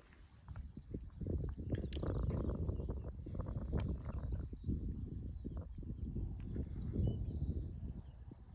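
Insects trilling in one steady, unbroken high tone, over a low uneven rumbling with many soft irregular knocks.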